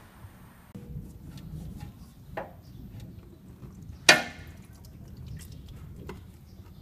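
Socket wrench knocking and clicking against the 14 mm oil drain plug and the metal around it while being fitted to undo the plug: a few sharp clicks, with one loud knock about four seconds in.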